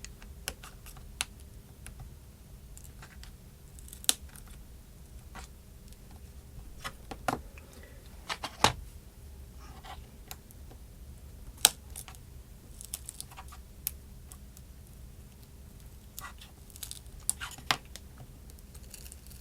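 Scattered light clicks and short scrapes of small hand tools working on the opened iPhone 4S, with a sharper click about nine seconds in and another about twelve seconds in.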